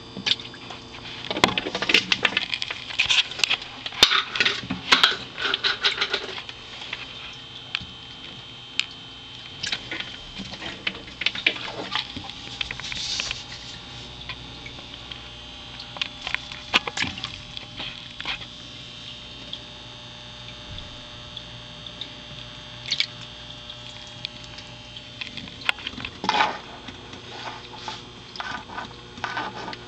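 Irregular bursts of rustling, scratching and light tapping as feeder crickets and toads move over the soil of a terrarium, over a steady electrical hum. A faint steady high note runs under the first two-thirds.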